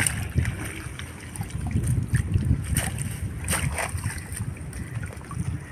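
Shallow stream water sloshing and splashing as a long-handled hand net scoops through a gathered drag net, with a few short splashes over a steady low rumble.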